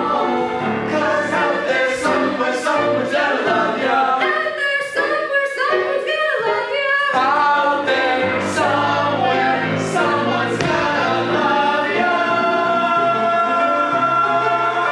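A group of voices singing together in a stage musical number, settling into long held notes near the end.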